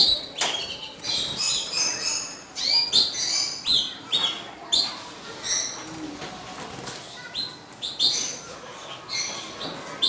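Caged canaries giving short chirping calls again and again and fluttering their wings. A couple of sharp knocks come right at the start.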